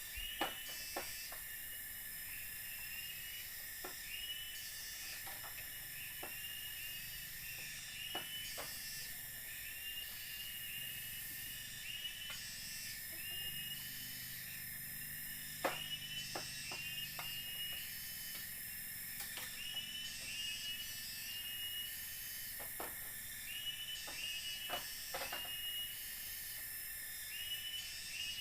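Tropical forest ambience: a steady high insect drone with short chirps repeating about once a second, over a high hiss. Scattered sharp taps and clicks break through now and then.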